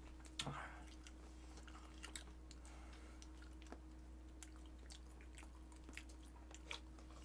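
Faint eating sounds: quiet chewing and scattered light clicks of chopsticks on fish and dishes, over a steady low hum.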